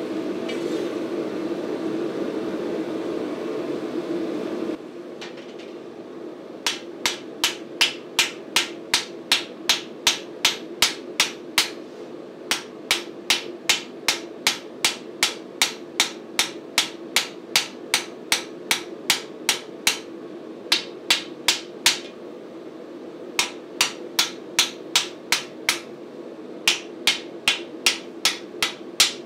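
A gas forge running steadily for the first few seconds. Then a hand hammer strikes red-hot flat steel bar on an anvil, about two sharp blows a second in runs with short pauses, forging a bevel along the bar.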